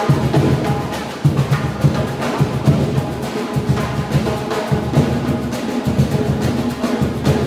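Samba percussion band playing a fast, steady beat, led by the deep strokes of surdo bass drums.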